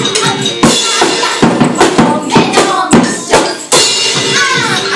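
Live band music: a drum kit with cymbals played hard, with a dense run of sharp hits through the middle, and women's voices singing into microphones.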